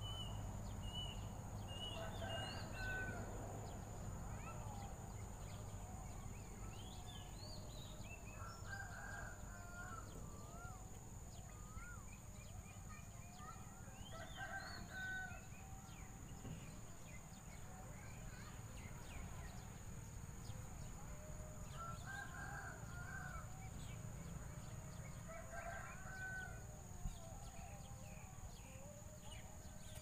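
A rooster crowing faintly several times, a crow every five to eight seconds or so, over a steady low hum and a thin steady high tone.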